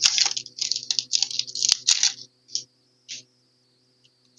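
Foil wrapper of a Pokémon TCG booster pack crinkling as it is handled and opened: a dense run of crinkles for about two seconds, then a few single short rustles.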